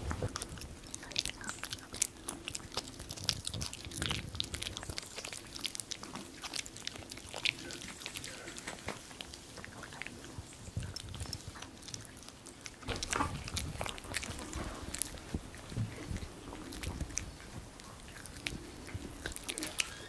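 A Maltese dog gnawing a hard dog chew: irregular wet clicks and crunches of teeth on the chew, close up.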